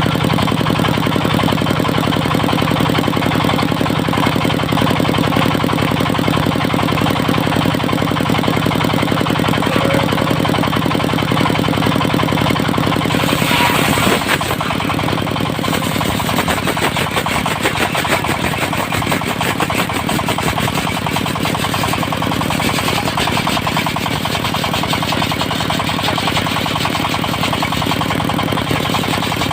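Diesel engine of a circular-saw sawmill running steadily with a rapid, even knocking beat. About halfway through the sound briefly brightens with a hiss, then settles slightly quieter.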